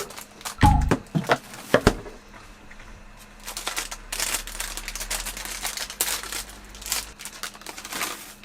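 Plastic wrapper crinkling and rustling as it is handled, with a few sharp knocks in the first two seconds.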